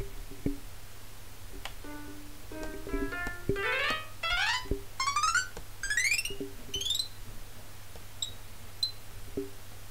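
Electronic synthesized notes played from music software on a laptop: a few short notes, then a run of quick rising pitch sweeps, then two short high blips near the end, with a few faint key clicks.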